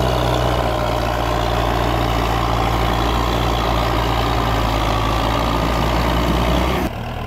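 Belarus MTZ-50 tractor's four-cylinder diesel engine running steadily under load as it pulls a heavily loaded sugarcane trolley. The sound drops suddenly near the end.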